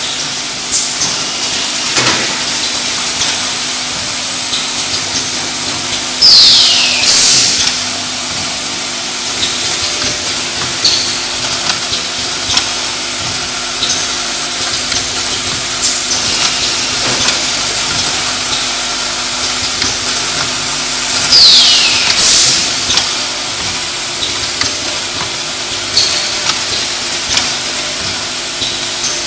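A cosmetic bottle filling and capping line running, with a steady motor hum, hiss and light clicks. Twice, about 15 seconds apart, there is a loud hissing burst of air with a falling whistle, as the pneumatic cylinders cycle.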